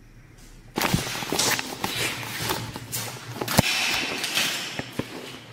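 Footsteps crunching and scraping over a debris-covered floor, starting about a second in, with several sharp cracks among them.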